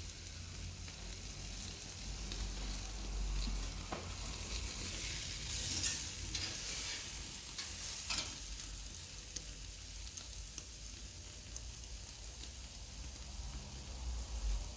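Thick ribeye steak sizzling steadily on a hot cast-iron grill over wood embers during the final sear, swelling a little about six seconds in, with a few sharp crackles.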